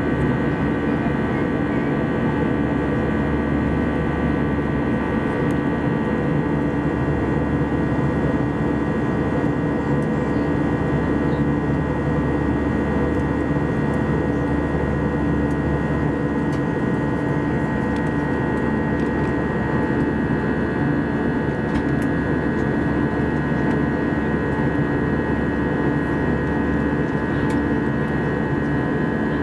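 Steady cabin noise of an Airbus A320-214 in flight: the even rush of airflow with a constant drone from its CFM56 turbofan engines. It holds level throughout, with no change in power.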